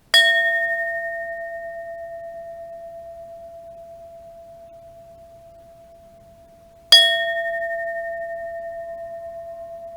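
Iron bell struck twice, about seven seconds apart; each strike rings on for a long time in a steady, slowly fading tone with a slight pulsing waver, its brighter overtones dying away first.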